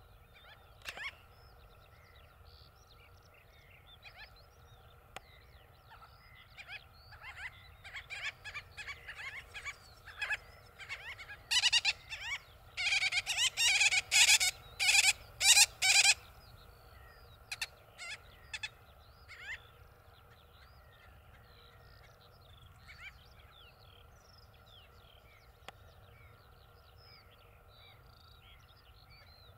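Black-bellied sandgrouse calling: scattered short, rough calls throughout, swelling about twelve seconds in to a loud run of repeated calls that lasts about four seconds, then thinning out again.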